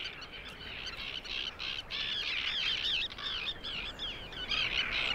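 A breeding colony of terns calling: many short, overlapping cries without a pause.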